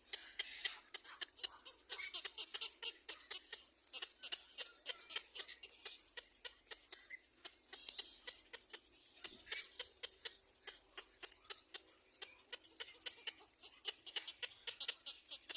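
Baby birds in the nest giving rapid, high-pitched begging calls: many short, sharp cheeps a second that carry on throughout.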